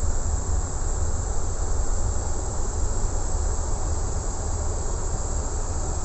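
Steady ventilation and systems noise inside the cockpit of a parked, powered-up Boeing 777-200: a low rumble with an even high hiss over it.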